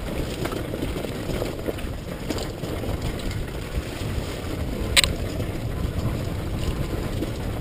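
Dirt bike engine running while riding, heard with wind rumbling on the microphone, and a single sharp knock about five seconds in.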